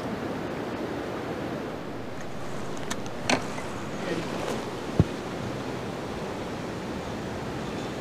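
Steady wind noise over rippling pond water, with a few small clicks of rod and reel handling and one sharp knock about five seconds in as the rod is lifted into a fish.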